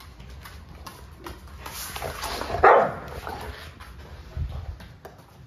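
Two Dobermans play-fighting, with a loud bark-like growl about halfway through and short scuffling clicks on a wood floor. A dull thump follows about two seconds later.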